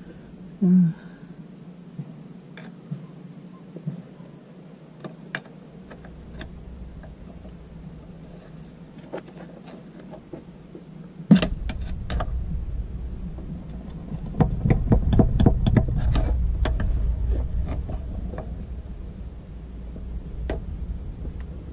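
Metal tools prying at the seam of a Mitsubishi DCT470 dual-clutch transmission casing: scattered clicks and knocks, one sharp knock about halfway, then a dense run of knocking and scraping with a low rumble underneath as the case halves are worked apart.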